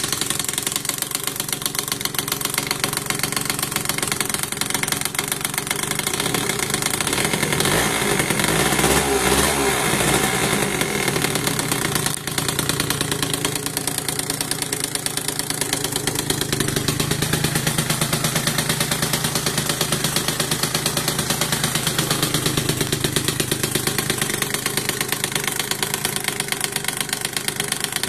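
Yamaha Aerox 50cc two-stroke scooter engine idling with a clattering rattle. The owner places the rattle in the middle to right of the crankcase and has not found its cause despite a new crankshaft, crank bearings, variator, exhaust and starter motor.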